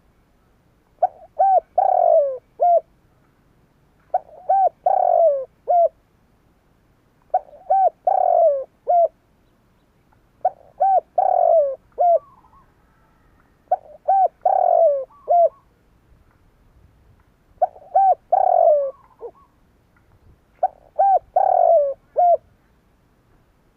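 Spotted dove singing: seven repeated coo phrases about three seconds apart, each made of two short coos, a longer, louder falling coo and a short closing note.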